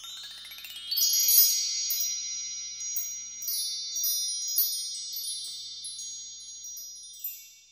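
Shimmering chime sound effect. It opens with a quick upward sweep, then many high ringing tones sprinkled with repeated sparkling strikes, slowly fading away near the end.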